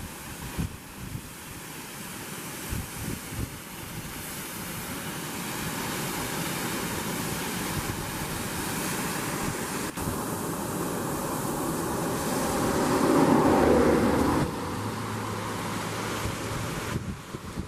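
Steady rushing roar of a tall waterfall, with wind buffeting the microphone in low gusty thumps during the first few seconds. About two-thirds of the way through the noise swells louder and then stops abruptly.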